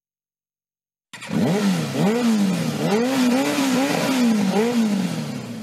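Motorcycle engine revving in a run of quick throttle blips, its pitch climbing and dropping over and over, then winding down near the end. It starts suddenly about a second in, after dead silence.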